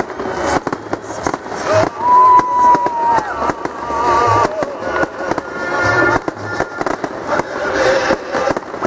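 Fireworks salute: a dense, irregular barrage of aerial shell bangs and crackling bursts, several going off close together.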